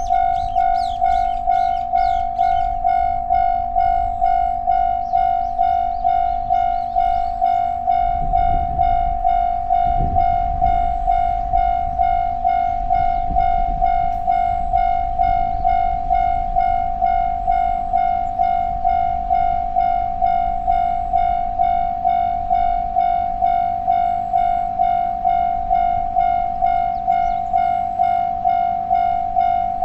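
Japanese railway level-crossing warning bell ringing its electronic 'kan-kan' tone in a steady repeating beat. About eight seconds in, a train rumbles over the crossing, heaviest for the first few seconds and then fading.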